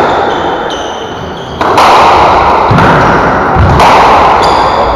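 Squash rally: the ball smacks off rackets and the court walls several times, each hit ringing out in the enclosed court, with high squeaks of rubber-soled shoes on the wooden floor and dull footfalls around the middle.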